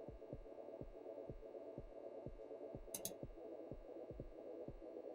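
Quiet suspense underscore: a soft low pulse of about three thumps a second over faint steady tones, with two brief ticks about three seconds in.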